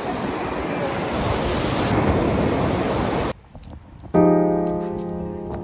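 Surf washing up a sandy beach, a steady rush of waves that cuts off abruptly after about three seconds. About a second later, piano music begins.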